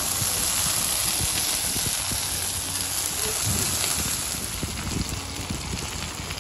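Food sizzling on a hot iron sizzler plate: a steady hiss.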